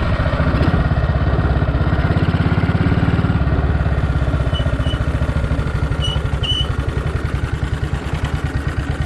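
Matchless G3L WD's single-cylinder four-stroke engine running at low speed with an even beat, easing off in the second half as the bike slows. A few short high squeaks come from the rear drum brake about halfway through, a squeak getting worse that the rider takes as a sign the brake linings need replacing.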